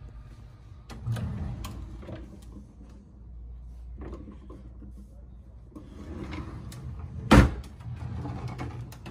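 Wooden drawer being opened and handled, with scattered light clicks and knocks and one sharp knock a little past seven seconds in.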